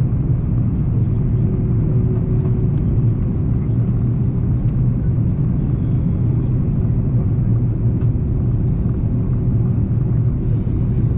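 Steady low rumble of an Airbus A330-300's cabin noise, engines and airflow heard from inside the passenger cabin, with a few faint ticks.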